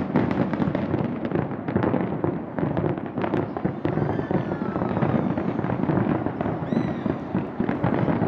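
New Year fireworks display going off in a dense, unbroken barrage of rapid crackling bangs.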